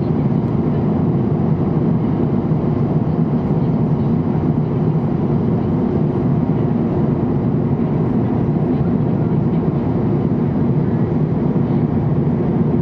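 Steady cabin noise of a jet airliner in flight: the even rumble of engines and rushing air heard from inside the cabin, deepest and loudest in the low range.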